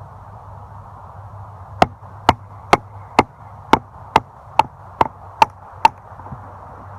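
Habilis Bush Tool bushcraft knife chopping into a piece of fir wood: ten sharp, evenly spaced chops, about two a second, starting a couple of seconds in.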